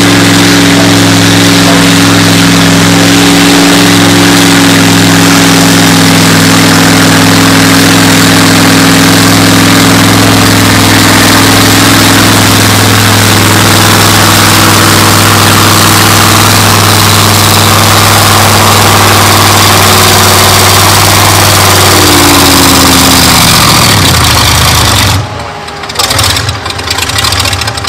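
V8 engine of a David Brown 1210 tractor running loud at high, steady revs while pulling a weight-transfer sled. The note sinks slowly over the second half as the sled's load builds, and near the end the revs fall away sharply, leaving rougher, uneven noise.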